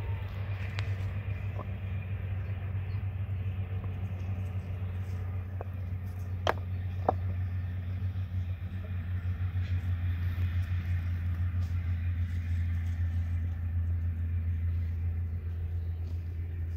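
A steady low rumble, with a few sharp knocks on top of it, two louder ones about six and a half and seven seconds in.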